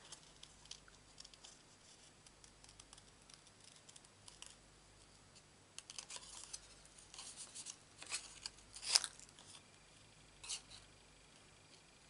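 Scissors cutting through card in short, irregular snips, cutting a stamped robin out along its outline. The snips are faint and sparse at first, come more often from about six seconds in, and are loudest about nine seconds in.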